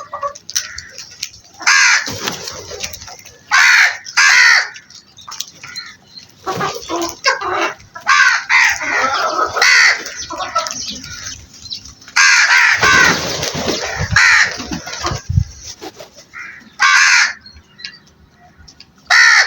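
A flock of crows cawing: harsh calls in repeated bursts, several birds overlapping.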